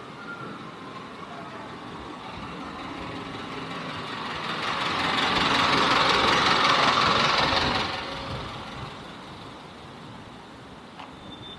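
A motor vehicle passing close by: engine and road noise swell over a few seconds, are loudest around the middle, then fade away.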